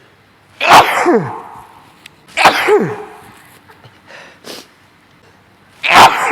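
A man sneezing three times, about two and then three and a half seconds apart, each a sudden loud burst trailing off in a falling cry. The sneezes are set off by snuffed sneezing powder.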